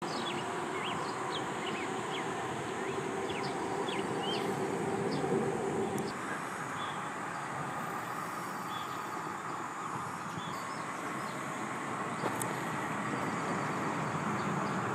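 Outdoor ambience: a steady rushing background noise with small birds chirping over it, the chirps quick and frequent in the first few seconds and sparse later on.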